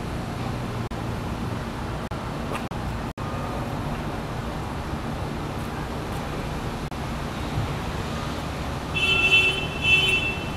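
Steady rumble of road traffic in the background, with two short high-pitched tones close together near the end.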